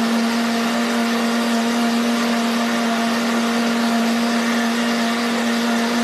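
Countertop blender running steadily, blending a berry smoothie, with a constant motor hum over the whir of the jug.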